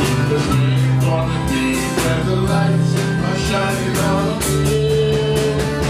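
Folk-country band playing: strummed acoustic guitars with harmonica.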